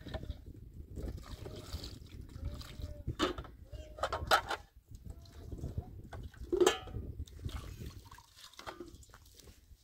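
Liquid pouring and trickling between plastic containers and bowls, with the knocks and clatter of plastic jugs and metal bowls being handled; a few sharp knocks stand out, the loudest near the middle.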